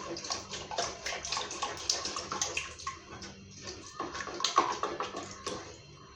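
Stock pouring and splashing into a pot of thick ogbono soup, an irregular run of sloshes and small knocks, loudest about four and a half seconds in.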